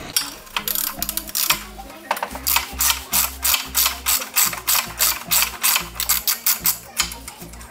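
Socket ratchet wrench clicking in quick, even strokes, about four clicks a second, as a bolt is worked loose on the golf buggy's front frame.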